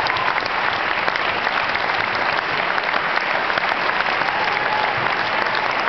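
Audience applauding: many hands clapping steadily, with people on stage clapping too.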